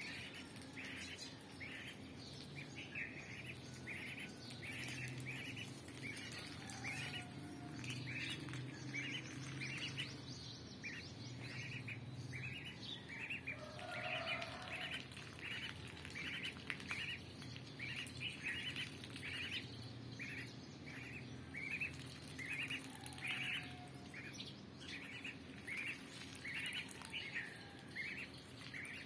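A duckling peeping: a steady run of short, high peeps, about one or two a second, with a few lower calls here and there.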